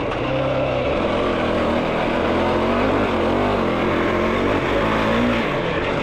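Yamaha YFZ450R sport quad's single-cylinder four-stroke engine under way, its pitch rising and falling again and again as the throttle is worked.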